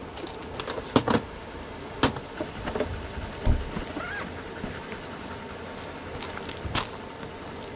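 Footsteps in rubber clogs crunching on a floor of loose river pebbles, with several sharp knocks and clatters as a bag is handled, the loudest about a second in and near the end. A small electric fan hums steadily underneath.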